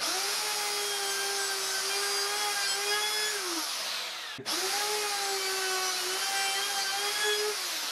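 Makita plunge router running with a steady high whine, then winding down in pitch about three and a half seconds in. It starts up again half a second later and winds down again near the end. It is being used to mill shallow biscuit slots in the table-frame parts.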